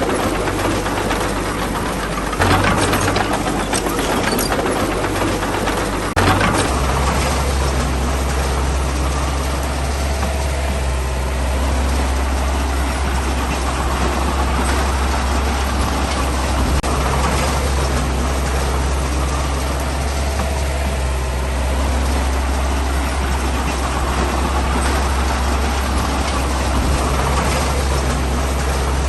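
Heavy diesel engine of earthmoving machinery running steadily. A couple of sharp knocks come in the first few seconds, and after about six seconds the engine's low note deepens and grows stronger.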